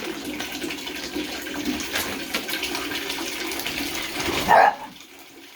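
Water running and splashing in a bathtub. About four and a half seconds in there is a brief louder sound, after which the water noise drops away.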